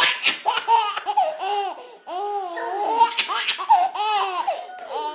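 Baby laughing in a string of short, high-pitched laughs, each rising and falling in pitch, with a brief pause about two seconds in.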